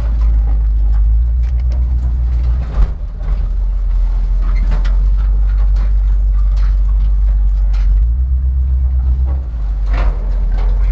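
Engine of a homemade 6x6 off-road truck running with a loud, low drone while it drives, with short knocks and rattles over it; the engine note changes briefly about three seconds in and again from about eight to nine and a half seconds in.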